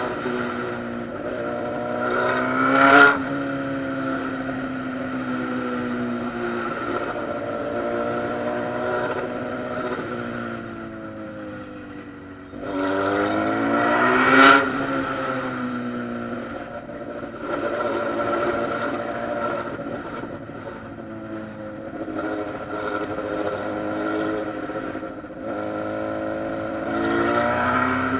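Honda Hornet motorcycle engine running under way in traffic. Its note rises and falls with the throttle, and twice it climbs to a sharp, loud peak before dropping back.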